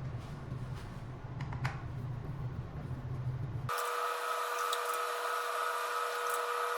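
Low hum with a few faint handling clicks, then a little past halfway a steady high motor whine starts abruptly: a power screwdriver unscrewing the bolts of the e-bike's controller compartment cover.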